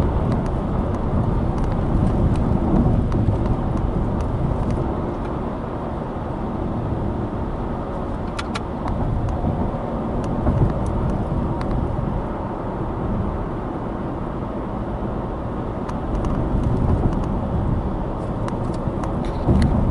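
Steady road noise and low rumble from a Subaru Impreza Sport with a 1.6-litre FB16 flat-four, driving downhill. A few faint light ticks come through around the middle and near the end.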